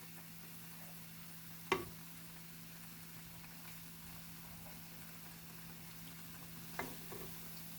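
Falafel balls frying in oil with a faint, steady sizzle. A sharp utensil click comes about a second and a half in, and two lighter knocks near the end.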